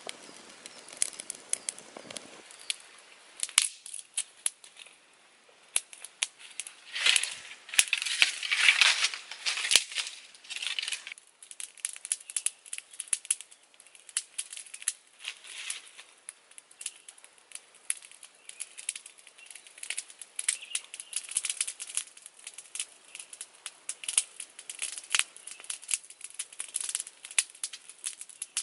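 Rustling and crinkling of dry plant material being handled, mixed with many scattered sharp clicks and crackles from a small wood fire. There is a denser stretch of rustling from about seven to eleven seconds in.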